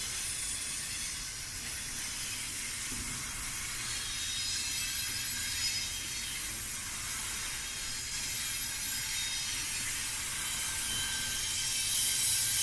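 Freight train cars rolling past on the rails: a steady rumble and rail noise with a faint thin squeal from the wheels.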